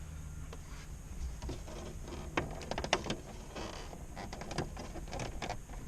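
Old, brittle plastic dash trim of a 1995 Plymouth Voyager being gently pried loose, making a run of small clicks and cracks as it works free. The clicks start about a second and a half in and come more often toward the end.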